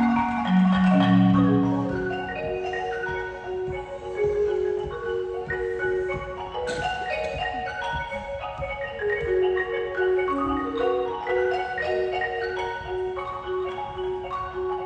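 Percussion quartet playing marimba with mallets: low bass notes ring in the first two seconds, then a repeated mid-range note keeps a steady pulse while higher notes move above it.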